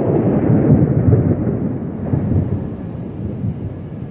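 Thunder rumbling from a nearby thunderstorm, loudest in the first second and gradually fading away.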